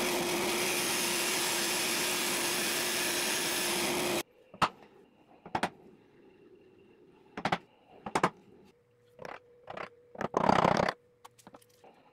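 A band saw runs and cuts a small wooden block: a steady rush with a constant motor hum. It cuts off suddenly about four seconds in. Then a hand chisel works notches in the wood, with a few sharp isolated clicks and, near the end, short scraping bursts.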